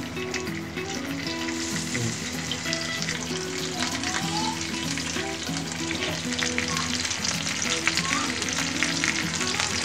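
Masala-coated whole kaarapodi (pony fish) sizzling and crackling in hot oil on a flat iron tawa as they are laid in one after another to shallow-fry.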